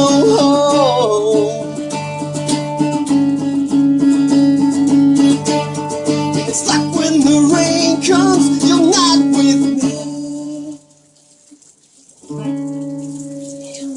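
A song played on guitar, with plucked notes over held low tones and a singing voice. The music drops out briefly about 11 seconds in, then comes back.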